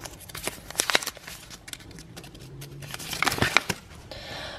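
Candy packaging and a paper pamphlet being handled: scattered light clicks and rustles, with a cluster of them about three seconds in.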